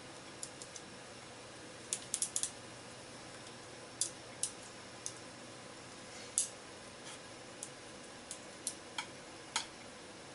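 Sliced pork being stir-fried with chopsticks in a frying pan: irregular sharp clicks and ticks, a dozen or more in ten seconds, over a steady low hiss.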